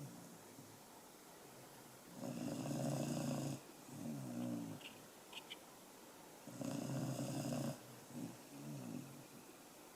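A sleeping pet snoring in slow breaths, about four and a half seconds apart. Each breath is a loud snore of about a second and a half, followed by a shorter, quieter one. A few faint clicks come about five seconds in.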